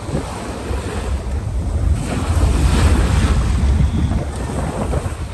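Ocean waves breaking on a beach, the surf swelling to its loudest about two seconds in and easing off again, with wind rumbling on the microphone.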